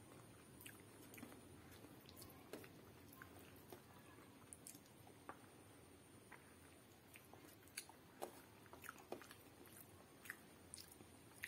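Faint chewing of soft khichdi, eaten by hand, with many short wet mouth clicks scattered throughout.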